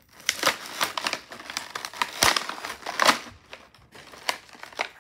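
Toy packaging crinkling and rustling in quick, irregular crackles as a small pack is pulled out of its box, loudest about two to three seconds in.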